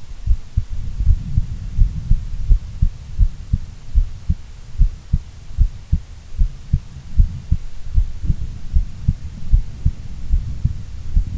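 A woman's heartbeat, steady, low thumps at about one and a half beats a second (around 90 a minute), over a low hum.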